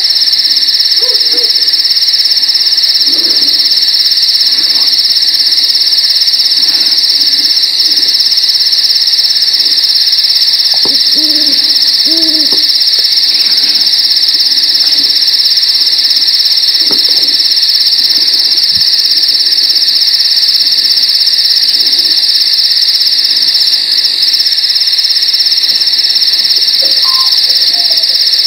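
Night-time insect chorus: a loud, steady, high-pitched trilling that never lets up. A few faint, short low calls sound here and there underneath it.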